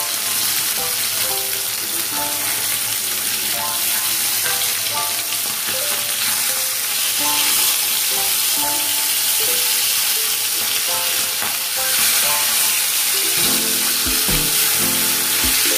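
Rohu fish pieces sizzling steadily as they shallow-fry in hot mustard oil in a nonstick kadai, with a wooden spatula stirring and turning them over. A few dull knocks come near the end.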